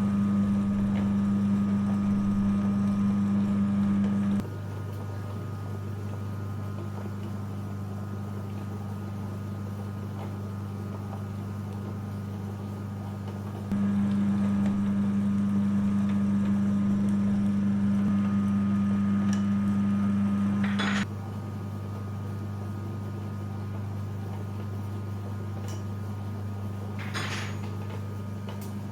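Electric meat grinder's motor humming steadily. The hum is louder for the first four seconds and again for about seven seconds in the middle, then drops back. Two brief scrapes come through, one as the louder hum cuts off and one near the end.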